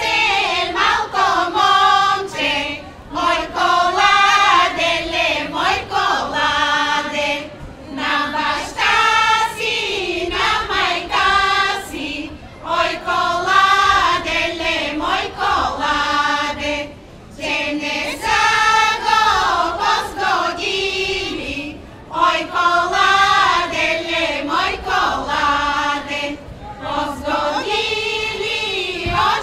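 Women's choir singing in Bulgarian folk style, in phrases of about four to five seconds separated by short breaths.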